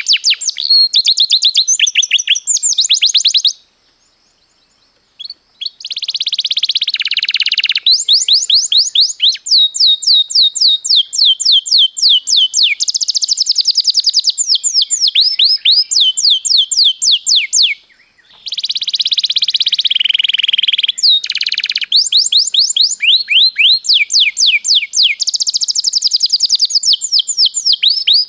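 Domestic canary singing a long rolling song: fast trills of repeated notes sweeping down in pitch, mixed with buzzier rolls, broken by short pauses about four seconds in and again near eighteen seconds.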